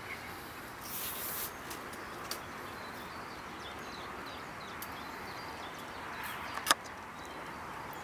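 Outdoor lakeside ambience with faint birdsong over a steady background hiss. A brief rush of noise comes about a second in, and a single sharp click, the loudest sound, comes near the end.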